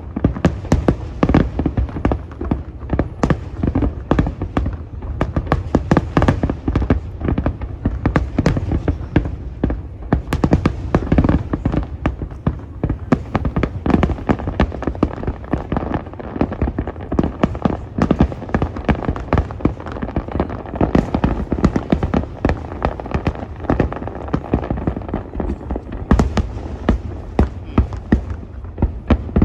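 Fireworks display: aerial shells bursting in a dense, unbroken barrage, many bangs a second.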